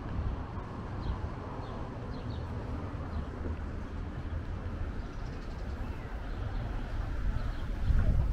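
Street ambience: a steady low rumble of traffic, with a few faint bird chirps in the first few seconds.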